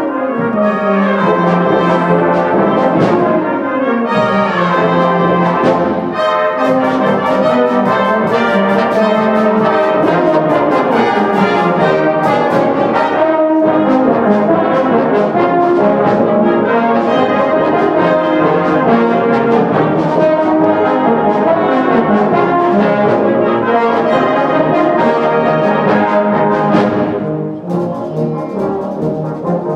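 A full brass band of cornets, horns, euphoniums, trombones and tubas playing a busy concert piece, with sharp percussion strokes through the middle. The sound thins briefly near the end before the full band comes back in.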